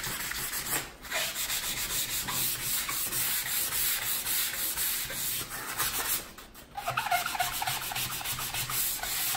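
Hand sanding of a dark-stained maple cabinet door with a sanding block: quick back-and-forth scratching strokes taking the old finish down toward bare wood so the paint will bond. The strokes stop briefly twice, about a second in and a little past the middle.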